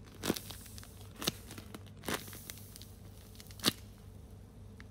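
A handmade paper squishy, a paper shell covered in tape, crinkling as it is squeezed by hand: four sharp crackles with soft rustling between.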